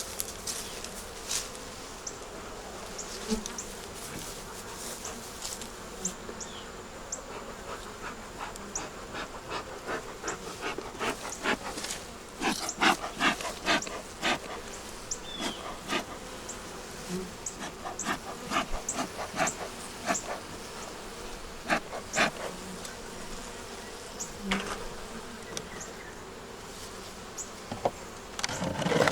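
Honey bees buzzing around an opened hive, a steady hum, with many sharp clicks and knocks laid over it, thickest in the middle of the stretch.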